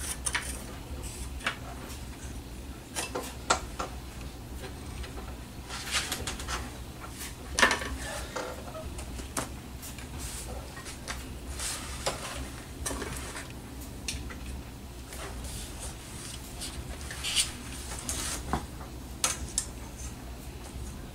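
Irregular clicks and knocks of hand tools and balsa parts being handled and set down on a workbench, with a few short scraping strokes, over a steady low hum.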